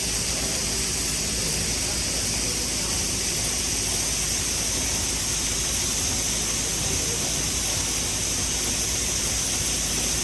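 Steady machinery noise: an even hiss with a low hum underneath that does not change.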